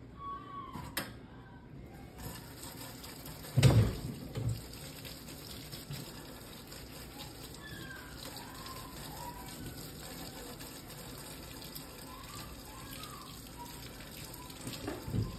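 Tap water running into a deep stainless steel sink over surgical instruments being rinsed by hand; the flow starts about two seconds in and runs steadily. A heavy thump against the sink comes shortly after the water starts, the loudest sound here.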